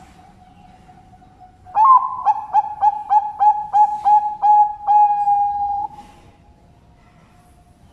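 Zebra dove (perkutut) cooing its song: an opening note, then a rapid run of about ten short clipped coos, about four a second, ending in one long held note of about a second. Fainter cooing from other doves runs underneath.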